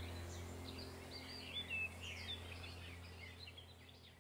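Faint birds chirping over a low steady hum, fading out to silence a little past halfway.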